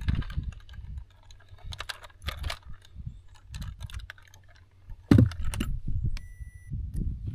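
Handling noise of a plastic fish lip-grip and tackle: scattered small clicks and rattles as the grip is worked off a bass's jaw. There is a heavier knock about five seconds in and a short electronic beep about a second later.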